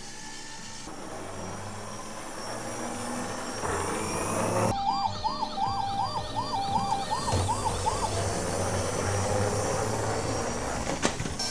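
Electronic emergency-vehicle siren, a quick rising-and-falling wail repeating about two or three times a second for some three seconds, over a steady hiss. A single sharp click near the end.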